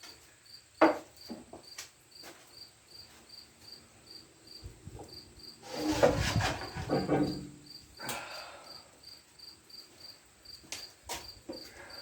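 A cricket chirping steadily, about three short high chirps a second. Over it, a sharp knock about a second in and a louder spell of knocking and scraping around the middle, as of metal parts being handled.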